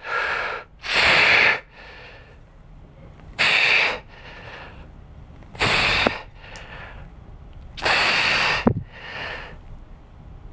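A man's forceful breathing through the mouth while doing bench press reps: five loud, sharp exhales, one about every two seconds as he pushes the bar up, with fainter inhales between them.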